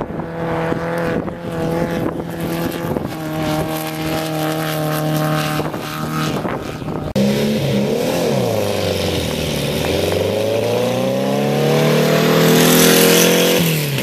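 Air-cooled VW Beetle race car engines. For the first half one holds a steady note; after a sudden cut about seven seconds in, a second Beetle pulls away, its engine note dipping and then climbing steadily as it accelerates, growing louder near the end.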